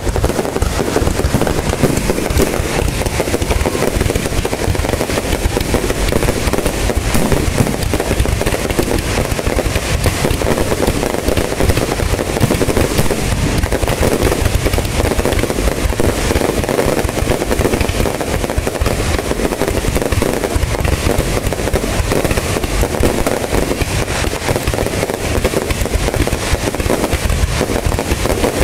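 Fireworks display going off without a break: many rapid, overlapping bangs of shells bursting.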